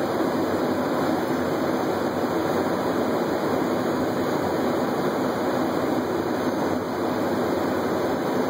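Steady rushing noise inside a Boeing 737 cockpit on approach: airflow noise around the flight deck, even and unbroken.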